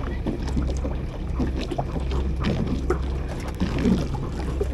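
Water lapping and slapping against the hull of a small moored boat, with scattered small clicks and knocks and a low wind rumble on the microphone.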